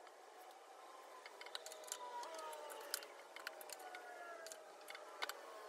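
Scattered light clicks and taps as a hand screwdriver and wooden shelves are worked inside a wooden cabinet, the sharpest about three seconds in and near the end. A faint tone slowly falls in pitch in the background.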